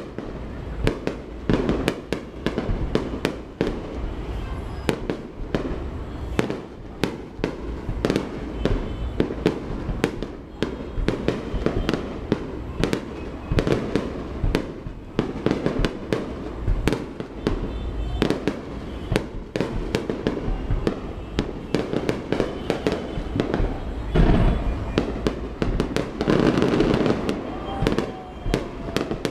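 Aerial fireworks display: a dense, rapid run of bangs and crackles, several a second, growing louder and denser for a few seconds near the end.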